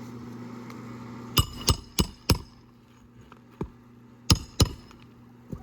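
Hand hammer driving roofing nails into an asphalt shingle: four quick, ringing strikes, then a few more spaced blows.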